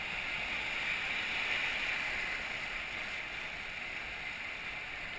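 Whitewater rapids on the Arkansas River rushing steadily around a raft, heard close to the water, swelling slightly a second or two in.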